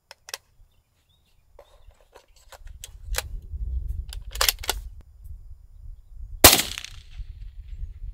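Mossberg MVP LR bolt-action rifle in 6.5 Creedmoor with a suppressor: light metallic clicks as a round is loaded and the bolt worked, then one suppressed shot about six and a half seconds in.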